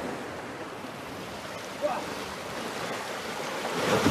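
Sea surf washing and breaking against rocks in a narrow inlet, a steady rushing noise that swells louder near the end. There is a brief sharp sound about two seconds in.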